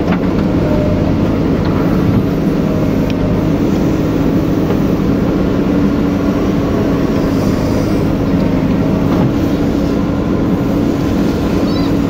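JCB backhoe loader's diesel engine running steadily under digging load, heard from inside the cabin as a loud, even drone while the backhoe scoops mud.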